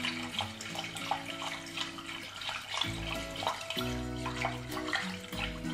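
Milk pouring from a carafe into a saucepan of butter-and-flour roux, with small clicks of a utensil stirring against the pot, under background music of held notes.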